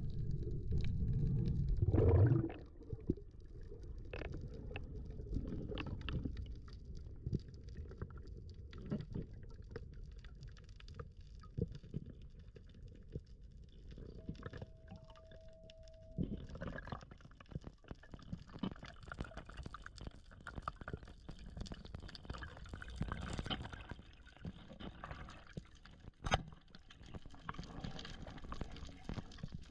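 Underwater sound picked up by a camera during a spearfishing dive: a low rumble of moving water, loudest with a burst of water noise about two seconds in, then many scattered clicks and crackles. About halfway through a single steady beep sounds for about two seconds.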